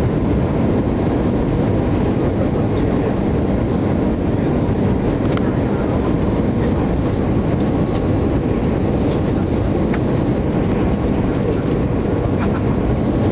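Steady low rumble of a jet airliner during a landing, holding even throughout, with faint steady whining tones above it.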